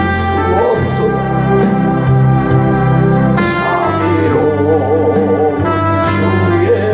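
Worship hymn music: sustained organ-like keyboard chords under a wavering melody line.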